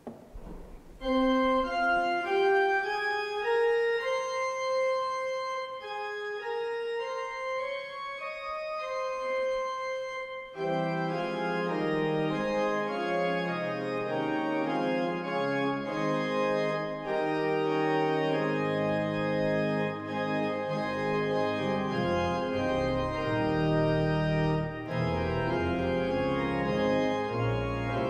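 Church organ playing: a single melody line at first, then full held chords from about ten seconds in, with deep bass notes joining later.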